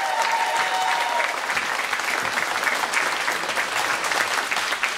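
Audience applauding, many hands clapping steadily. A single voice holds a drawn-out call over it at first and fades out about a second in.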